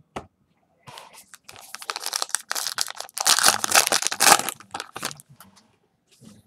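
A trading-card pack wrapper being torn open and crinkled by hand: a rapid run of crackling rips, loudest between about three and four and a half seconds in.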